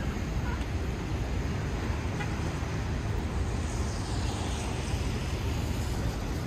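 Rainy city street ambience: steady traffic rumble and rain hiss. About four seconds in, the tyre hiss of a passing vehicle on wet pavement swells and fades.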